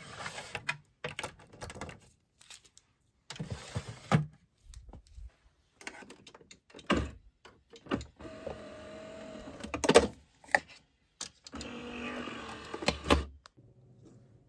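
Clicks and rattles of a plastic capsule drawer sliding and a pod being handled, then a Nespresso Vertuo coffee machine closing with loud clicks and its motor whirring in two short runs.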